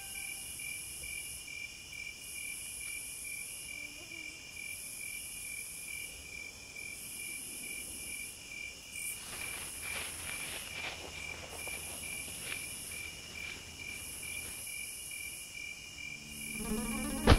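Night-time cricket chorus: a steady, fast-pulsing chirp with a higher insect trill that comes and goes about once a second. Soft rustling comes a little past halfway, and a sudden loud knock sounds near the end.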